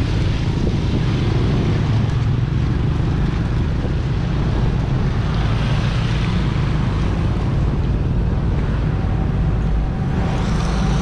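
Steady low rumble of a vehicle passing close by, with wind buffeting the microphone.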